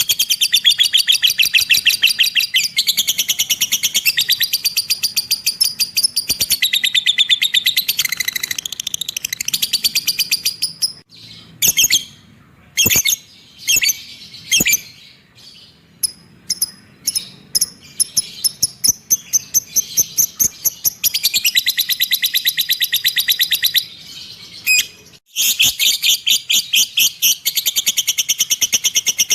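A cage bird singing: long runs of rapid, evenly repeated high chirps. Through the middle stretch these break into separate sharp chirps with short gaps, then the fast run resumes.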